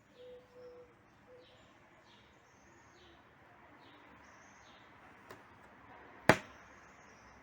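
Faint birds chirping repeatedly, with a few short low cooing notes in the first second and a half. One loud sharp click about six seconds in, after a fainter one a second before it.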